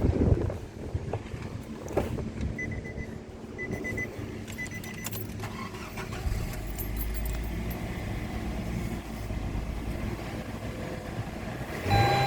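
Nissan MR20DE 2.0-litre inline-four engine running in the car during a pre-sale test, the low hum getting heavier from about halfway through. Three short high beeps, about one a second, sound early on.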